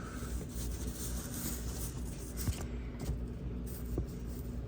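Steady low room hum with a few faint, short clicks and taps from wiring being handled.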